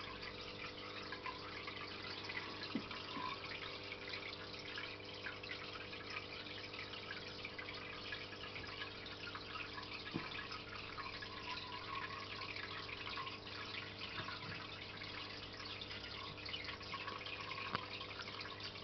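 Aquarium filter water trickling and dripping steadily into the tank, over a steady low hum, with a few faint clicks.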